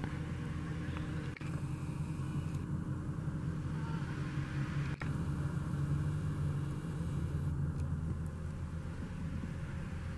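Vehicle engine idling steadily, a low even hum, with two brief clicks about a second and a half and five seconds in.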